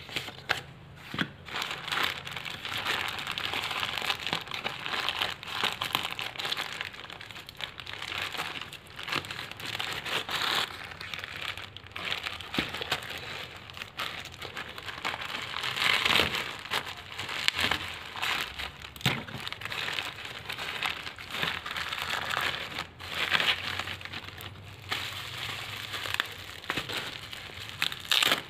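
Plastic courier mailer bag crinkling and crackling in the hands as it is handled and torn open, then bubble wrap crinkling, with many small sharp crackles.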